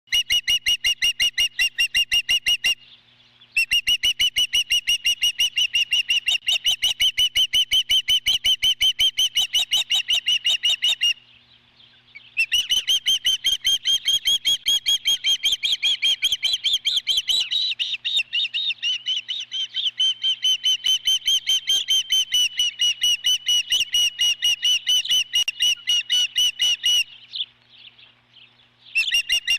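Osprey calling from the nest: long runs of rapid, high, repeated chirps, many a second, broken by brief pauses three times.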